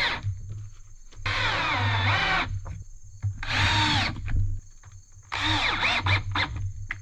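Cordless drill working into a wooden 2x4: three runs of the motor, each whining up in pitch and dropping back, the last one in short stop-start pulses. A low hum runs underneath.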